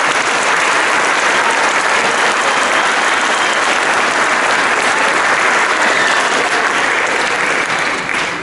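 Audience applauding steadily in an auditorium, starting to die away near the end.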